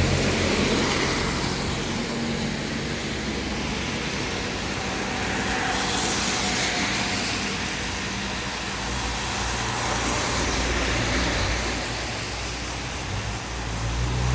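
A motor vehicle's engine running, a low steady hum that rises and falls a little, over a steady hiss.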